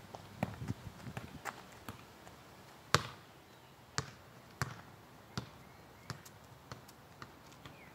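Soccer ball being kicked and bouncing on street pavement: a run of quick light touches in the first second and a half, then single sharp knocks about once a second, the loudest about three seconds in.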